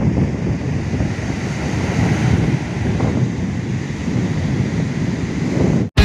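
Strong wind buffeting the microphone over the rush of heavy surf breaking on the shore. It cuts off suddenly near the end.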